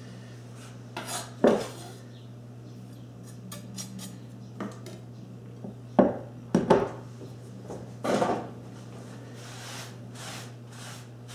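Kitchen handling sounds: a chef's knife scraping and knocking against a glass bowl as herbs are pushed off the blade, the bowl and knife set down, and a hand brushing across a wooden cutting board near the end. A steady low hum runs underneath.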